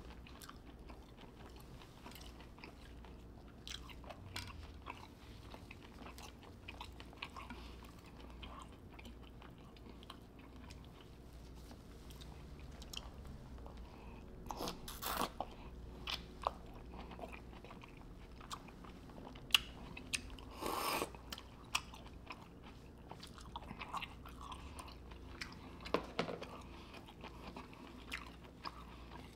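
Close-miked chewing and mouth sounds of a person eating a sauce-coated green-lipped mussel: wet smacking and many small clicks. A louder, longer wet sound comes about halfway through and again about two-thirds of the way in.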